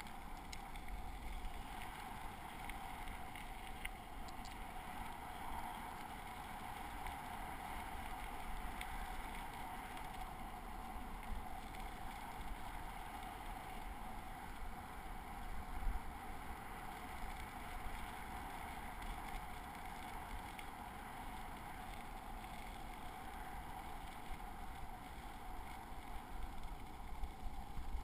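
Bicycle tyres rolling over a crushed-gravel trail, a steady rumble mixed with wind noise on the camera, with a brief bump about halfway through.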